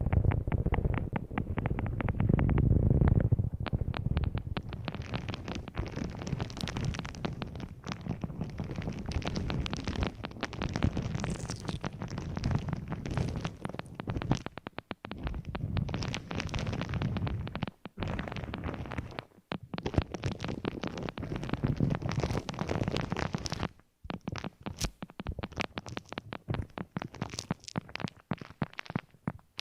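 Close-miked ASMR handling of an object: dense crackling and scratching over a low rumble, with a few short pauses.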